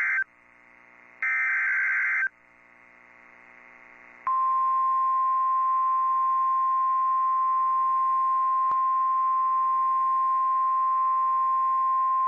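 Emergency Alert System SAME header on NOAA Weather Radio: the tail of one burst and then the last full burst of the screeching digital data tones, about a second long, with faint radio hiss between them. About four seconds in, the 1050 Hz weather-warning alert tone starts: one loud, steady, unbroken beep that signals a warning is about to be read.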